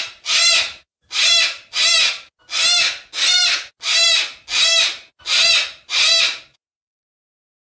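Yellow-crested white cockatoo screeching: about ten harsh calls, each about half a second long, coming roughly in pairs.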